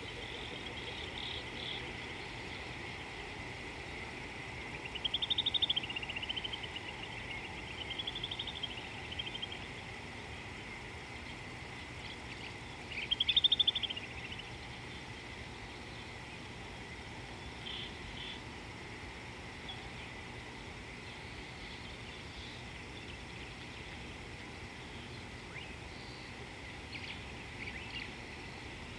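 Bush ambience: a steady high insect drone, with a bird's rising-and-falling trilled calls about 5, 8 and 13 seconds in, the last the loudest, and a few faint short chirps near the end.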